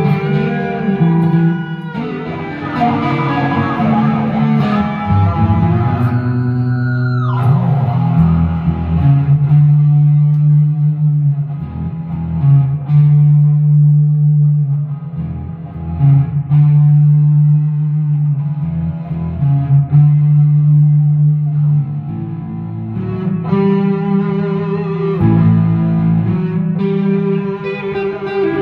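Two amplified electric guitars jamming together. About seven seconds in, a note swoops sharply down in pitch; after that they play a steady, repeated chord riff.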